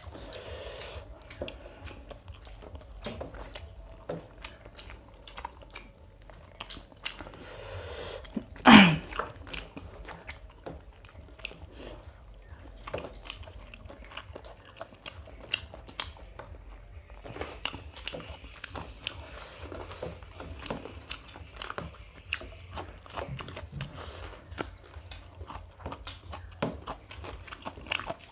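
Close-up eating sounds of people chewing mouthfuls of biryani: wet chewing and many small mouth clicks, picked up by a clip-on microphone. About nine seconds in comes one short, loud throat sound that falls sharply in pitch.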